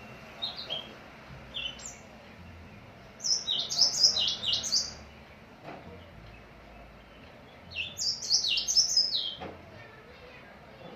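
A small songbird singing: a few single high chirps at first, then two bursts of rapid high chirps, about three seconds in and again about eight seconds in.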